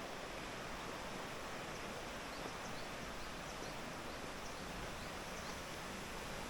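Mountain stream running steadily, an even rush of water, with a few faint high chirps in the middle.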